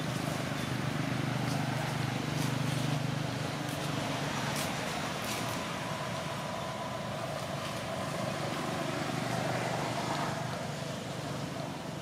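A motor vehicle's engine running steadily in the background, a low hum that fades a little near the end, with a few faint clicks.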